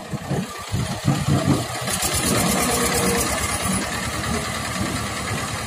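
HMT 1811 tractor's diesel engine chugging unevenly, then picking up at about two seconds in and running hard and steady while pulling a heavily loaded trailer.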